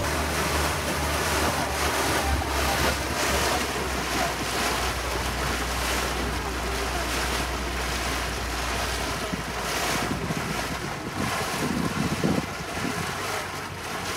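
Wind buffeting the microphone and water washing past a moving passenger boat, over a steady low hum from the boat's motor that drops away about two-thirds of the way through.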